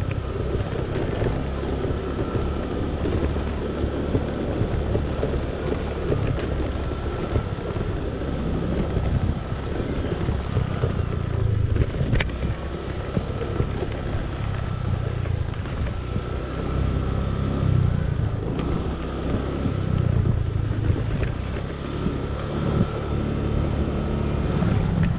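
Honda scooter's engine running steadily while riding, with wind buffeting the microphone and a faint steady whine above the engine note.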